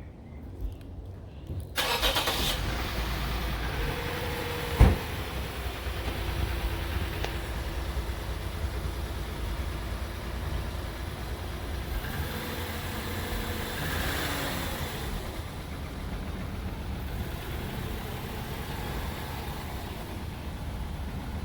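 Lexus GS350's V6 engine cranks and catches about two seconds in, then runs steadily at idle. It is a first start after the car sat unused for an unknown time, made possible by refitting a missing EMVLV fuse. A single sharp thump sounds a few seconds after it catches.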